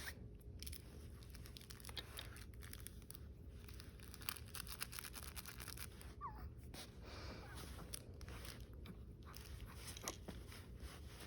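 Faint crunching and crinkling of a pet chewing and biting at a squeaky toy, many small clicks without the toy squeaking.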